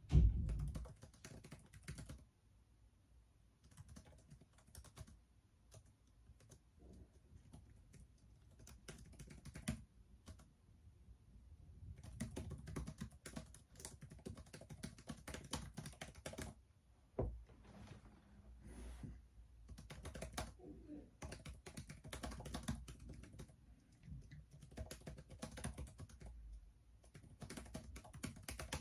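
Typing on a laptop keyboard: runs of rapid key clicks with short pauses between them. A dull thump right at the start is the loudest sound.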